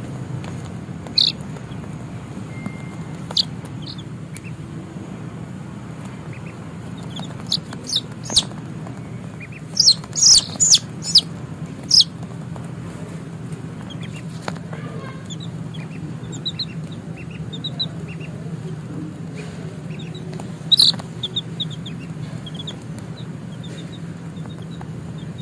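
Baby chicks peeping: short, sharp high calls come in scattered bursts, loudest in a quick run about ten seconds in and again about twenty-one seconds in, with softer chirps between. A steady low hum runs underneath.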